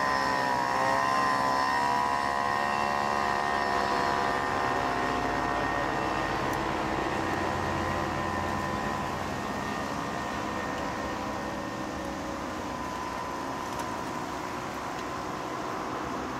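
Motor traffic humming, with a steady engine drone that dips slightly in pitch near the start and slowly fades.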